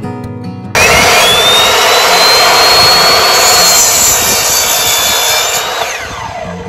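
Electric miter saw starting with a rising whine about a second in, running loud as it cuts through a wooden board, then winding down with a falling whine near the end. Acoustic guitar music plays before the saw starts.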